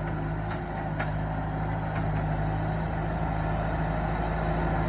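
Engine of heavy machinery running steadily at an even speed, with a couple of faint knocks about half a second and a second in.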